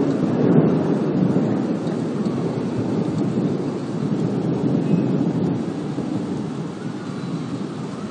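A long rolling rumble of thunder that slowly dies away.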